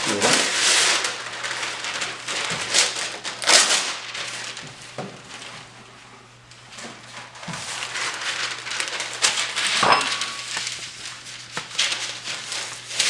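Parchment paper rustling and crinkling in irregular surges as it is handled and laid into a cookie sheet, with a sharp knock about ten seconds in.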